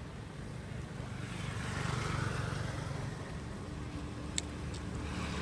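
A motor vehicle's engine running steadily in the background, growing louder about two seconds in, with a single sharp click near the end.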